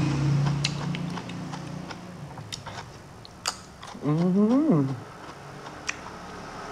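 Close-miked mouth sounds of a man eating by hand: a held hum, then scattered lip-smacks and chewing clicks, and about four seconds in a short 'mmm' hum that rises and falls in pitch.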